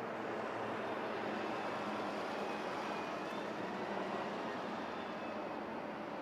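Jet aircraft engines running, a steady rushing noise with a faint high whine over it.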